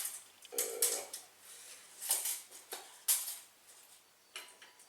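A string of light metallic clinks and clicks, about seven or eight short ones spread irregularly, from metal parts being handled.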